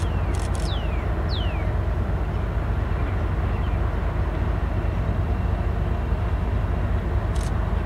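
Diesel locomotives hauling a container freight train across a long stone arch bridge: a steady low rumble with no horn. A couple of short, high, falling chirps sound about a second in.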